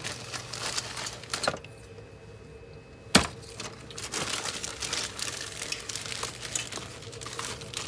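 Clear plastic bag around a plastic model kit's sprues and decal sheet crinkling as it is handled and pulled open, in two stretches with a quieter pause between. A single sharp click about three seconds in.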